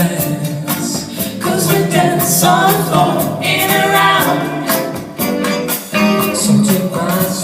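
Female vocal trio singing in harmony through a PA system, over a steady beat.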